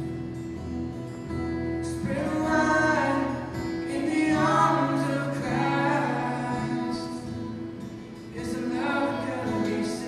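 A woman singing a slow worship song live, in phrases with short gaps between them, accompanied by an acoustic guitar.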